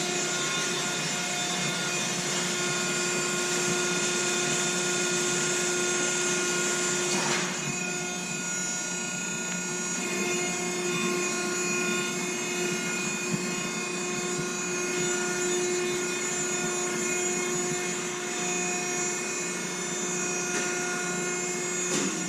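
Potato unloading and conveying equipment running steadily while seed potatoes are unloaded into a storage bin: a constant machine drone with several steady whining tones. A hissing upper layer stops about seven seconds in.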